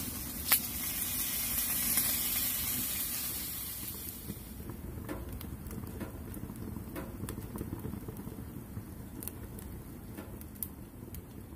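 Meat sizzling on a mini griddle atop a titanium wood stove, with a sharp click about half a second in. The hiss eases off after about four seconds into scattered pops and crackles.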